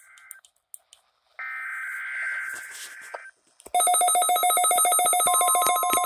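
NOAA weather radio Emergency Alert System test: a SAME header data burst, a harsh two-tone warble, plays from the weather radio's speaker for about two seconds. About two-thirds of the way through, the Midland weather alert radio's loud, rapidly pulsing electronic alert sets in. A steady warning alarm tone joins it near the end.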